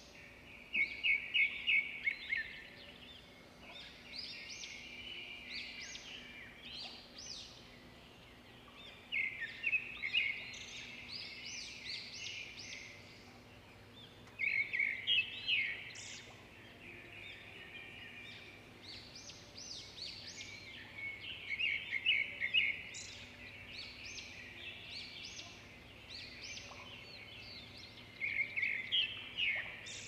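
Small songbird singing: about five bursts of quick, high chirping notes, one every six or seven seconds, over a steady low hum of outdoor background noise.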